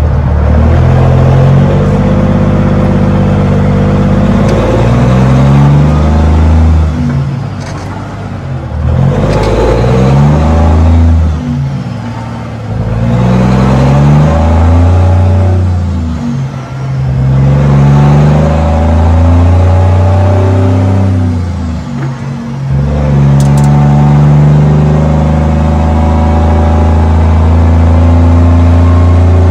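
Cummins L10 straight-six diesel in a 1987 Ford L9000, running through 6-inch straight-pipe stacks while pulling up through the gears loaded to 36,500 lb gross. The engine note climbs in each gear and drops at four upshifts, about 8, 12, 17 and 22 seconds in, then holds steady and loud near the end.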